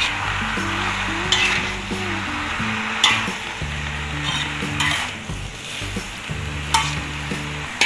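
Shredded cabbage and mustard greens sizzling in hot oil in a wok while a metal spatula stirs them, scraping and knocking against the pan about five or six times.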